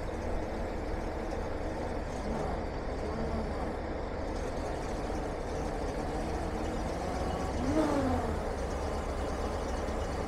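1996 Chevrolet 4500 tow truck running steadily while its hydraulic wheel-lift is lowered, with a brief whine that rises and falls about eight seconds in.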